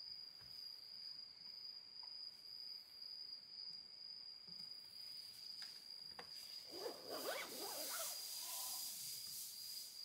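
A tent's door zipper being pulled in a quick scratchy run of about two seconds, a little past halfway in, over a steady high insect trill of crickets.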